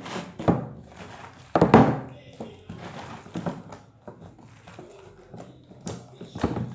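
Wet, water-logged slime being mixed in a pot, giving irregular squelches and pops. The loudest comes a little under two seconds in.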